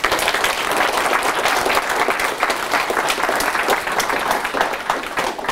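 Lecture audience applauding: many hands clapping together, starting suddenly and fading out near the end.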